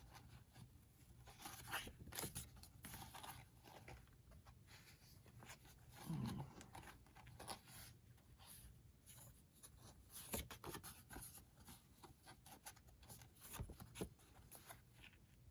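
Faint rustling, sliding and light tapping of cardstock and paper being handled and lined up by hand.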